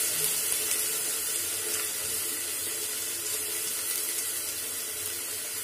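Red lentils (masoor dal) sizzling steadily in hot mustard oil with fried onions in an open pressure cooker.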